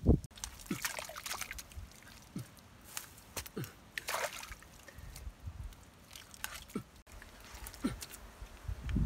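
Wet mud being worked by hand and stick: scattered squelches, slaps and drips of muddy water. The loudest comes right at the start, with a cluster about four seconds in.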